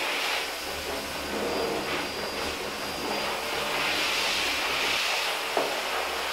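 Hands scrubbing shampoo lather into a wet dog's fur, a soft wet rubbing that comes and goes, over a steady whirring hum. A single sharp click a little past five seconds in.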